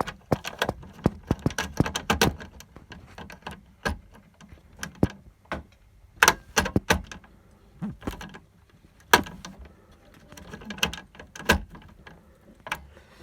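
Irregular clicks, taps and knocks of hands working a small screwdriver and wires into an alarm panel's screw terminals, with a few louder knocks about six and nine seconds in.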